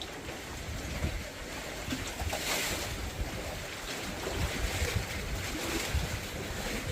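Strong wind buffeting the microphone in gusts over the wash of waves, with a swell of surf hiss about two and a half seconds in.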